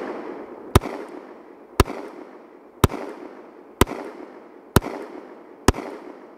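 Glock 43X 9mm pistol fired six times at a steady pace of about one shot a second, each report trailed by a fading echo.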